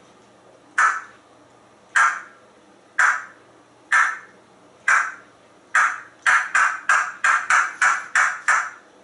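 African grey parrot giving short, harsh, caw-like squawks: about one a second at first, then speeding up to a rapid run of about four a second for the last three seconds.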